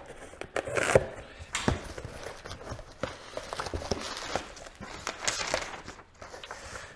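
Cardboard shipping box being opened and unpacked by hand: irregular rustling and crackling of tape, flaps, bubble wrap and packing paper, with many small clicks and knocks.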